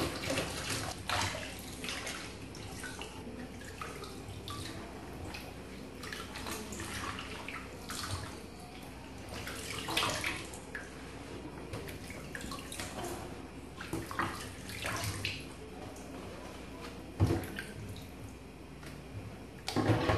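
Banana leaves being rinsed in a stainless steel kitchen sink: water splashing and dripping as the wet leaves are swished and lifted out, with a sharp knock near the end.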